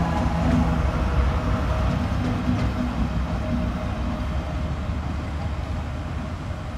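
Colas Rail Freight Class 70 locomotive's V16 diesel engine rumbling as the locomotive passes close by, gradually growing quieter as it moves away.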